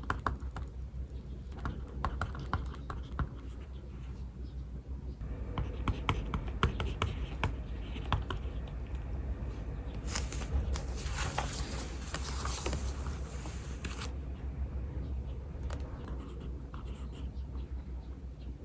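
Pen writing on paper: many short scratching strokes and light taps. For about four seconds in the middle there is a louder, hissing scratch or rustle of paper.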